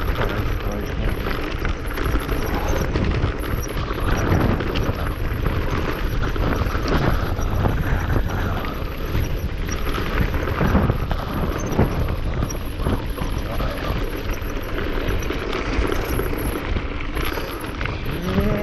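Mountain bike rolling fast down a loose rocky track: tyres crunching and rattling over stones, the bike clattering, with a heavy rumble of wind on the microphone.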